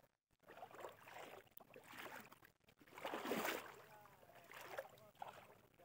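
Faint water sloshing and swishing in shallow floodwater as someone wades through it, in a series of short swishes, the loudest about three seconds in.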